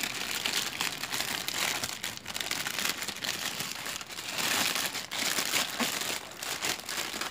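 Clear plastic wrapping crinkling and crackling as it is peeled and pulled off a cardboard product box, a dense run of small crackles, a little louder about halfway through.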